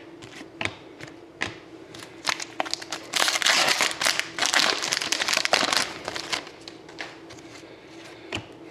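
Foil wrapper of a hockey card pack being torn open and crinkled, a dense crackling from about three to six seconds in. Light clicks and flicks of the cards being handled come before and after.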